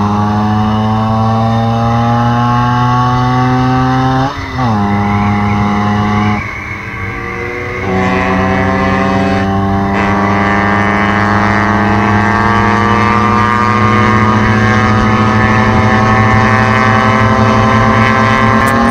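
Vespa largeframe scooter's two-stroke single-cylinder engine pulling under way, its pitch climbing slowly. A little over four seconds in it flares and drops sharply at a gear change, runs quieter for a moment off the throttle, then climbs steadily again, with wind and road noise underneath.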